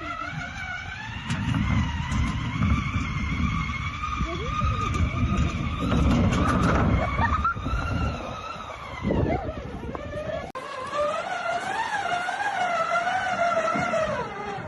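Unmanned wheeled ground vehicle driving, its motor whine rising and falling with speed over a rough low rumble from the running gear. About ten seconds in the rumble cuts out and the whine wavers on.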